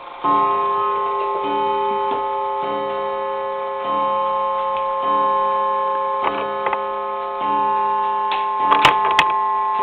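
Gilbert Pandia clock's gong struck by its leather-faced hammer, sounding a series of strokes at a slow, even pace, each stroke ringing on into the next. Sharp clicks from the movement come near the end. The strike train is counting the strokes correctly after its repair.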